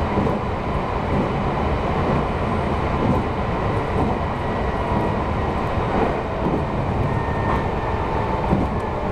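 Meitetsu 3150 series electric train running on the line, heard from inside the front car: a steady rumble of wheels on rail with a faint whine over it.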